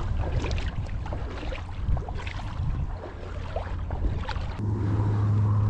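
Inflatable PVC boat moving across shallow water: irregular splashes and knocks against the hull over a low rumble. About four and a half seconds in, a steady low hum starts and holds.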